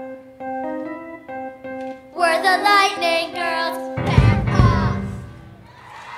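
Children's rock band closing a song. A keyboard plays short repeated notes over a held tone, then young girls' voices sing together for about two seconds. A final loud hit on drums and bass guitar rings out and fades near the end.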